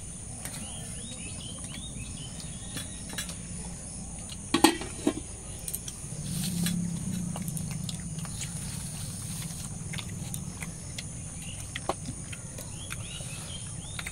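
Rural outdoor ambience: a steady high drone of insects with short bird chirps now and then. A sharp knock or clatter comes about four and a half seconds in.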